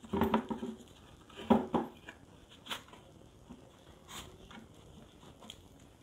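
Knocks and clatter of a hard plastic bucket being handled while a bracket is fitted inside its rim. Two louder knocks in the first two seconds, then scattered light taps.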